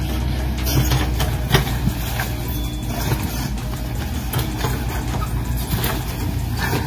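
Steady low engine rumble of heavy machinery, the engine sound that goes with a radio-controlled excavator loading a dump truck, with scattered clicks and knocks through it.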